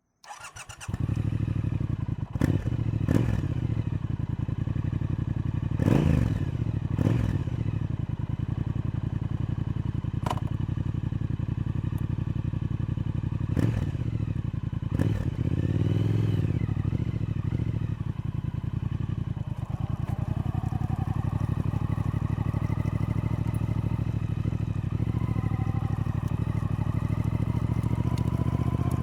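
Triumph Speed Twin's parallel-twin engine running steadily, with a few sharp clicks in the first half and a brief rise and fall in engine note about two-thirds of the way in.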